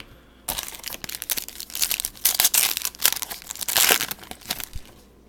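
Crinkling and crackling of a trading-card pack's wrapper being handled and torn open, a dense run of quick crackles lasting about four seconds.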